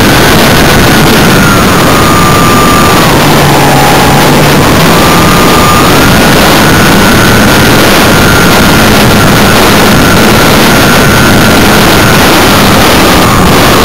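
Wind buffeting a small onboard camera microphone with a loud, steady rush, over the thin whine of a Himax brushless outrunner electric motor. The whine drops in pitch about three seconds in and climbs back about six seconds in.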